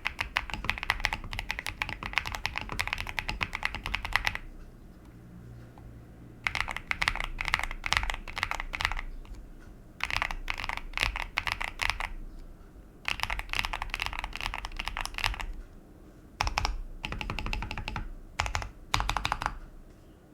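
Mechanical keyboard with stock MZ Studio Z1 linear switches and a PE foam mod being typed on, fast runs of key clacks in bursts of a few seconds with short pauses between them.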